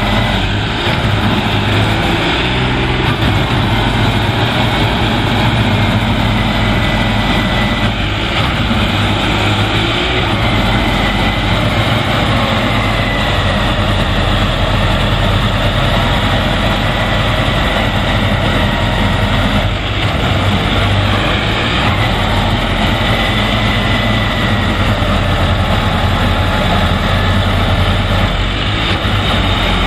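Diesel engine of a John Deere tractor-mounted Standard combine harvester running steadily under load as it works through deep mud, a loud low drone with a faint high whine that drifts up and down in pitch.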